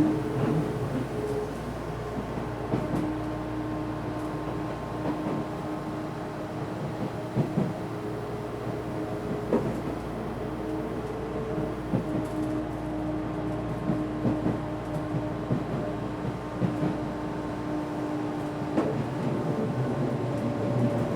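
Odakyu 1000-series electric train running, heard from inside the car. A steady drone of the traction equipment and a running air conditioner are broken by irregular clacks and knocks of the wheels on the track.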